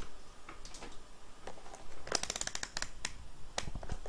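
Small clicks and taps of handling a small part and tools at a workbench: a few scattered clicks, then a quick rattling run of about a dozen clicks a little past two seconds in, then a few single clicks.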